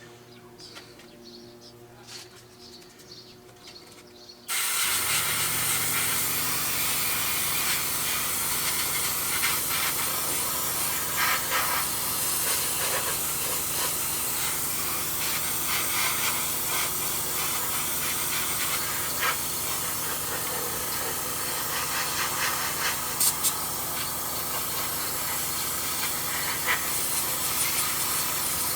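Airbrush spraying paint: a steady hiss of compressed air that starts abruptly about four and a half seconds in.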